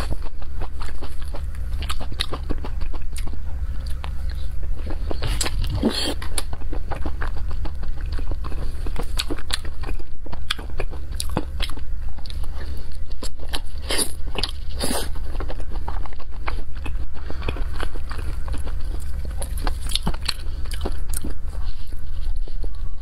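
Close-miked eating of saucy, chili-coated skewered food: biting and chewing with many small wet clicks and crunches, a few louder near the middle, over a steady low hum.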